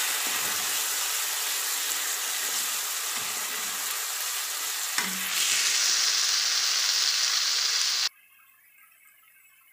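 Onions and ginger-garlic paste sizzling in hot oil in a kadai while being stirred with a wooden spatula. About five seconds in there is a click and the sizzle turns louder and brighter, then it cuts off suddenly about eight seconds in.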